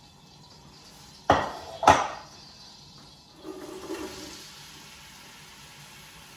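Chopped onions tipped into a pan of hot cooking oil: two sudden loud hisses of sizzling about half a second apart, then a steady, quieter sizzle.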